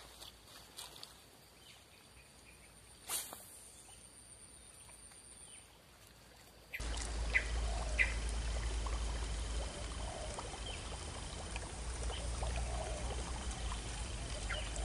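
Quiet outdoor ambience by still floodwater with a single soft click. About seven seconds in it gives way to a louder steady hiss with low rumble, a thin steady high tone and a few faint clicks.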